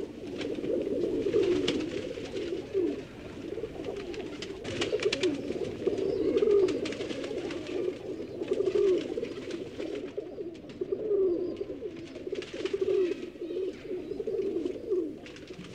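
Domestic pigeons cooing continuously, many low warbling coos overlapping, with scattered short clicks and rustles.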